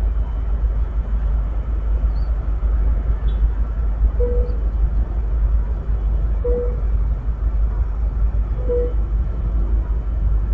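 Low, steady rumble of idling trains at a rail station. From about four seconds in, a short single-pitched beep repeats about every two seconds.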